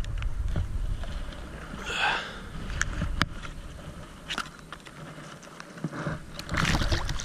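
Water splashing and sloshing as a bass is released by hand into a pond, with scattered light clicks and a brief splash about two seconds in.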